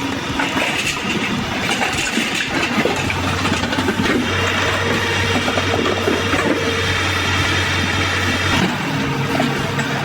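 An engine-driven machine running, with a steady low hum that comes in about three seconds in and stops about eight and a half seconds in.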